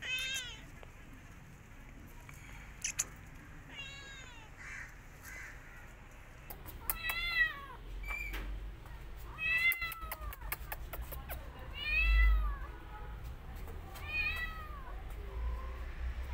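Kitten meowing over and over: about six high calls, each rising then falling in pitch, a couple of seconds apart.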